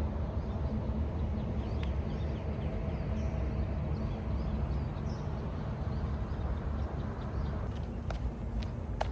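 Outdoor park ambience: a steady low rumble, with faint high bird chirps around the middle and a few sharp clicks near the end.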